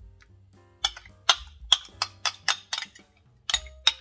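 Metal spoon clinking and scraping against a ceramic bowl and a glass bowl as sour cream is scooped out and knocked off into water: a series of sharp, irregular clinks, about a dozen, starting about a second in.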